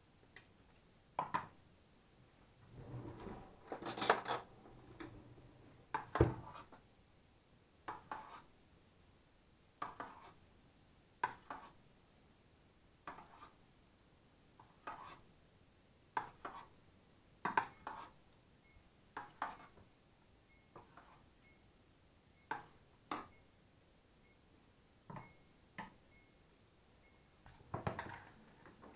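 A spoon scraping and knocking against a stainless steel roasting tray while basting, scooping pan juices over a roast. There is a short stroke every second or two, with a longer scraping stretch a few seconds in.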